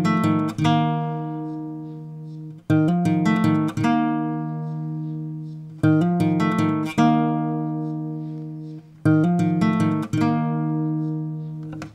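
Background music of a strummed acoustic guitar: chords struck in pairs about a second apart, the pattern repeating about every three seconds, each chord left to ring and fade.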